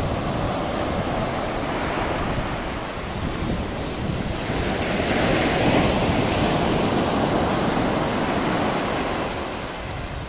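Surf breaking on a sandy beach, with wind rumbling on the microphone. It swells to its loudest about five or six seconds in as a wave breaks, then eases toward the end.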